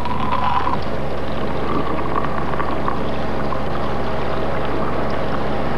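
Movie soundtrack of a sci-fi effects scene: a steady low hum under dense mixed sound, with a wavering tone in the first second and again about two seconds in.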